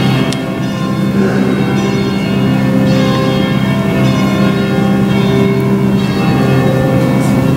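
Church bells ringing: a run of overlapping strikes with notes changing about every half second to a second, over a low hum that never stops.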